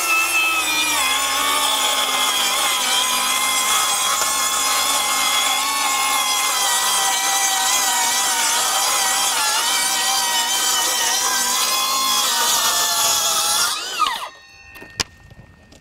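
Milwaukee M18 FUEL 6-1/2-inch brushless cordless circular saw making a long continuous cut through OSB: a steady, high whine whose pitch dips slightly under load. About fourteen seconds in the trigger is released and the blade winds down with a falling whine, followed by a few light clicks.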